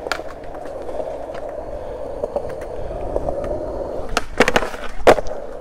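Skateboard wheels rolling steadily on concrete, then a few sharp clacks of the board against the ledge and ground about four seconds in, the loudest near the end, as a trick on the ledge is attempted.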